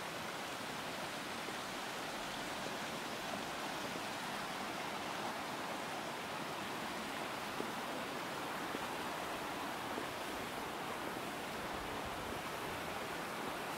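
Mountain river running over boulders in a rocky granite gorge: a steady, even rush of water.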